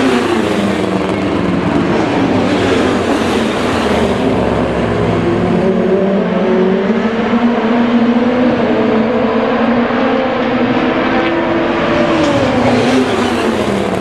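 Several DTM touring cars' 2.0-litre turbocharged four-cylinder engines at racing speed, with two cars passing close together. Their overlapping engine notes keep rising and falling as they accelerate and lift, with one note dropping away near the end.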